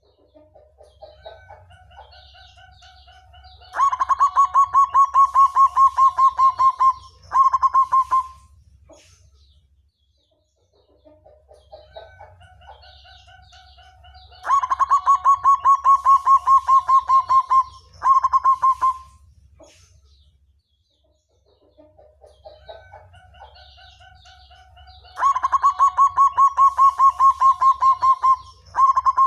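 Zebra dove (perkutut) song, the same phrase three times about ten seconds apart: a few soft opening coos, then a fast loud rolling trill of evenly spaced notes for about three seconds, ending in a short final burst.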